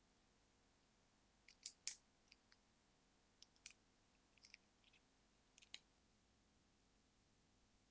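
Raw shrimp shell being peeled off by hand: a few faint, crisp clicks and crackles in small clusters as the shell segments come away, the loudest about two seconds in.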